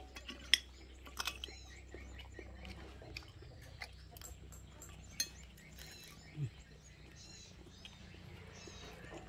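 Faint scattered clicks and soft taps of eating by hand from glass plates, with one sharp clink about half a second in. Small bird chirps come and go in the background.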